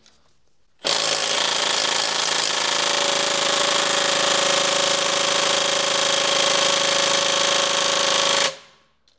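Makita impact wrench on its strongest setting hammering steadily at a BMW E61's wheel bolt for about seven seconds without breaking it loose: the bolts had been overtightened. It starts about a second in and stops abruptly near the end.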